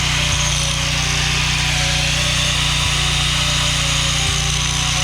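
Stick welding with 7018 rods on a steel ripper tooth adapter: a steady hiss over a steady low hum.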